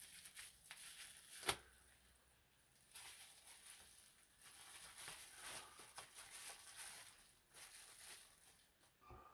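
Near silence with faint rustling and handling noises in irregular patches, and one sharp click about a second and a half in.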